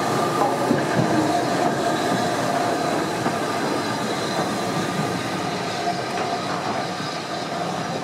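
British Railways Mk1 passenger carriages rolling past at low speed, steel wheels on the rails giving a steady metallic squeal and an occasional click over the rail joints, slowly getting quieter.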